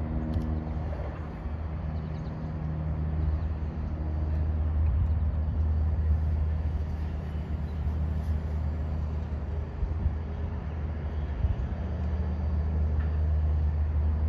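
Steady low engine hum of distant vehicles under faint outdoor city noise; a pitched engine tone fades out about a second in.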